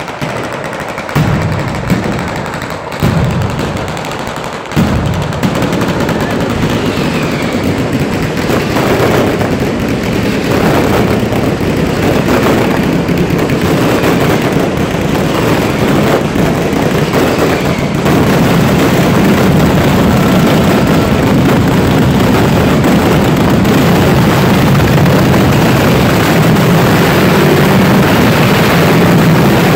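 Fireworks batteria, the southern Italian barrage of firecrackers and fireworks. A few separate loud bangs in the first five seconds give way to a dense, unbroken rattle of explosions, which grows louder about halfway through.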